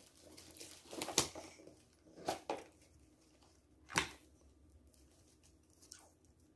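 Handling noise while unboxing: a few short rustles and clicks of paper wrapping and a plastic watch band being turned over in the hands, separate sounds a second or so apart, the sharpest about four seconds in.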